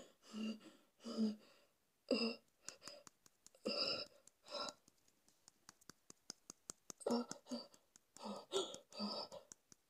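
A man's short, breathy groans and grunts without words, coming in clusters with a lull in the middle. Faint sharp clicks are scattered between them.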